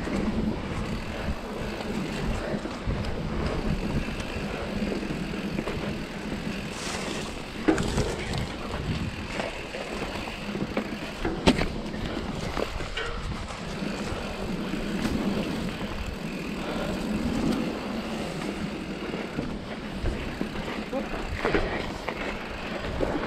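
Mountain bike rolling along a dirt singletrack: steady tyre and drivetrain rattle, with two sharp knocks about eight and eleven seconds in as the bike hits bumps in the trail.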